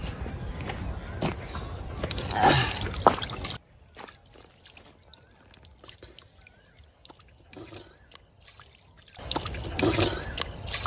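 Hand dabbling and scooping water in a shallow irrigation ditch: small splashes and trickles of water.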